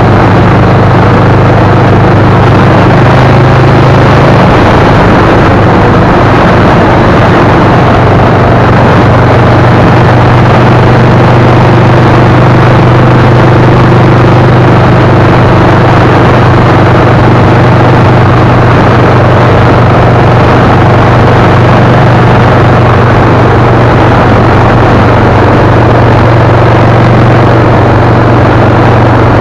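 Loud, steady drone of a vehicle cruising at highway speed: a constant low engine hum under road and wind noise.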